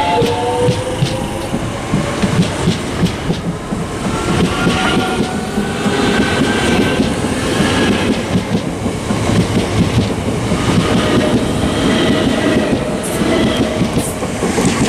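Southeastern Class 465 Networker electric multiple unit departing and rolling past close by, its wheels clattering over the rail joints. A rising electric whine is heard near the start as it picks up speed.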